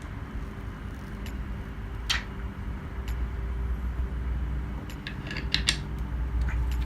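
Small sharp clicks and taps from handling tools and phone parts while the touch glass is laid on the screen: one about two seconds in and a quick cluster of several near five seconds. Under them runs a low steady machine hum that grows louder about three seconds in.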